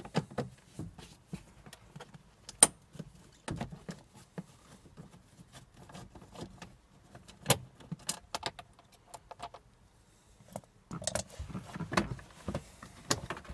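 Scattered sharp clicks and light knocks from a screwdriver backing out self-tapping screws under a car's plastic glovebox, one click much sharper a few seconds in. Near the end comes a denser clatter of plastic as the glovebox is handled to come off.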